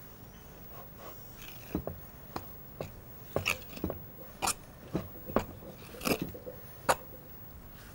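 A fork mixing brown bread dough in a glass bowl: irregular clicks and scrapes of the fork against the glass, about a dozen, starting a little under two seconds in.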